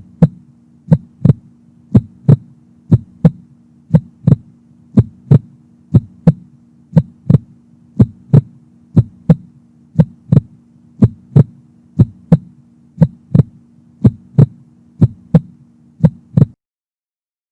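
Heartbeat sound effect: paired lub-dub thumps about once a second over a steady low hum, stopping shortly before the end.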